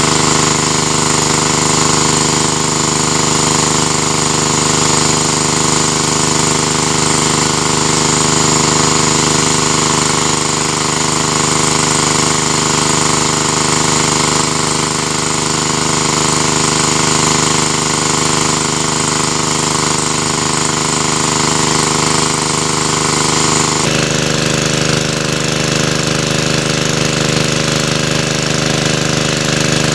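Engine-driven water pump running steadily at a constant speed while it drains the water. Its tone shifts abruptly about three-quarters of the way through.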